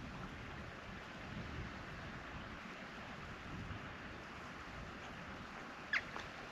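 Steady wind noise on the microphone, with one short, sharp high-pitched chirp about six seconds in.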